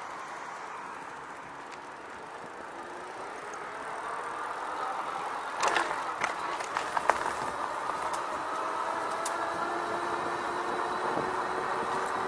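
RadRover fat-tyre electric bike riding: a steady rush of wind and tyre noise on the bike-mounted microphone, with a faint whine from the rear hub motor rising slowly in pitch as the bike picks up speed. A few sharp knocks come from the bike about six and seven seconds in.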